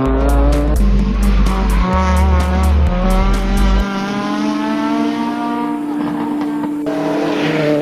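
Rally car engine revving hard, with tyres squealing through a tight turn. Background music with a steady beat plays under it; after about four seconds the engine sound gives way to music with long held notes.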